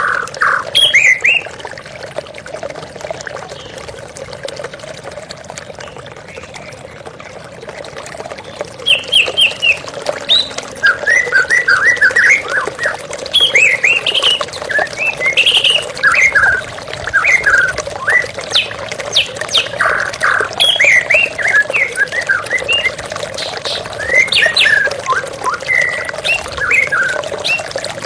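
White-rumped shama (murai batu) singing in quick phrases of sharp whistles and chirps over the steady rush of flowing water. The bird pauses for several seconds after the first second, then sings almost without break.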